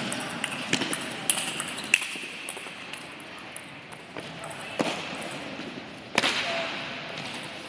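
Table tennis ball clicking back and forth off bats and table in a quick rally, about two hits a second, for the first two seconds. After that, only scattered ball clicks over the hall's background, with a louder knock about six seconds in.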